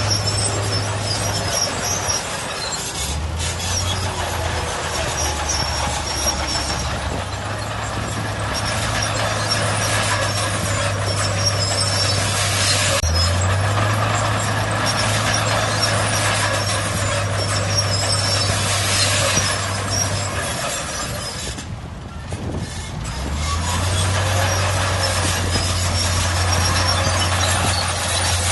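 Heavy diesel earthmoving machinery running, its engine note stepping up and down in pitch several times over a steady mechanical wash, with a brief dip in loudness a little past two-thirds of the way through.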